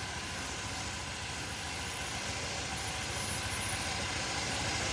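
Steady low background hum and hiss, with no distinct events.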